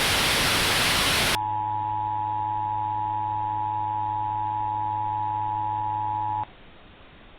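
A loud burst of static hiss for about a second and a half, then a steady emergency-alert attention tone, two close pitches held together under a faint lower hum, for about five seconds. The tone cuts off sharply, leaving a faint hiss.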